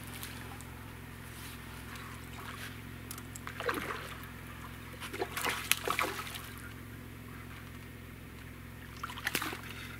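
A hooked crucian carp splashing at the water's surface as it is played on a float rod, in short bursts a few seconds in, again around the middle and near the end, over a steady low hum.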